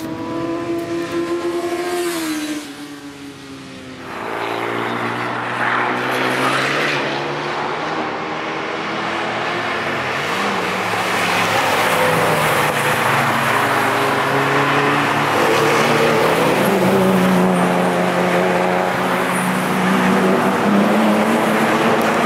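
Several sports-car engines running at speed as a group of cars drives past on a race track, their engine notes overlapping. One engine note falls about two seconds in, and the sound grows fuller and louder from about four seconds in as more cars come through.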